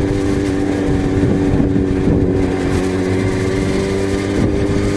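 Yamaha XJ6's inline-four engine running at steady revs while the motorcycle is ridden along, its note holding an even pitch.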